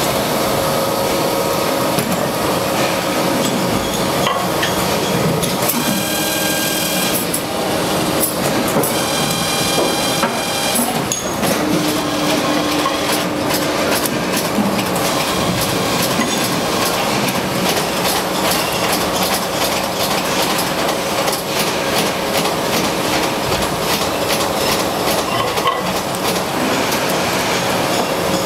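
Running machinery of a motor stator production line: a steady hum under dense, rapid clicking and clattering, with short pitched whines about six and nine seconds in.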